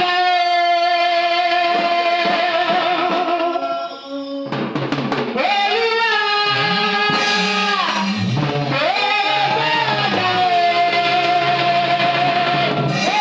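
Live gospel praise and worship music: a band with guitar and drums under long held, slightly wavering melody notes. Bass and drums come in about four and a half seconds in.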